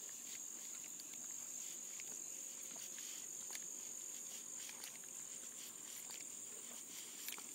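Faint, steady high-pitched insect chorus, with scattered soft clicks.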